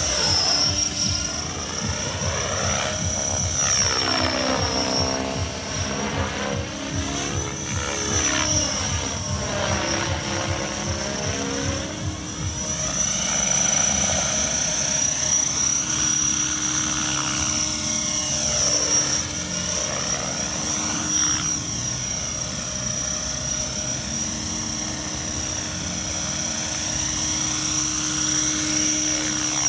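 Radio-controlled model helicopter flying, its motor and rotors running with a steady high-pitched whine over a rapid rotor chop. The sound sweeps and swells as the helicopter moves back and forth past the listener.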